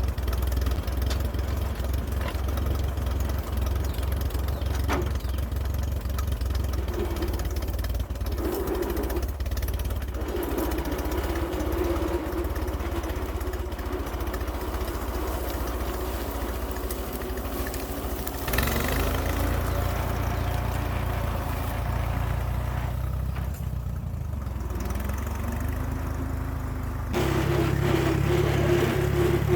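Engine running steadily, its tone shifting a couple of times as the throttle changes, then stepping up and running louder near the end.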